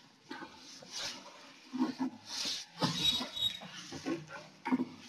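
Whiteboard duster wiping across a whiteboard in short, uneven strokes. A faint high squeak comes in about three seconds in.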